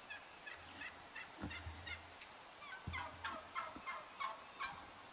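Wild turkeys calling close by: two runs of short, quick notes about four a second, the second run louder, with a few soft low thuds among them.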